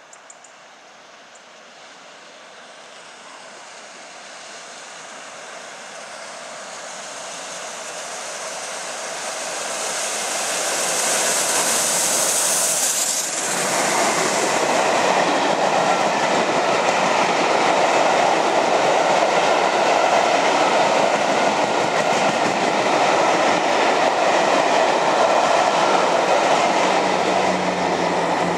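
LNER Peppercorn A1 Pacific steam locomotive 60163 Tornado and its train of coaches passing. A hiss grows steadily louder as it approaches, the sound changes suddenly as the engine goes by about 13 seconds in, then the carriages keep rolling past over the rails.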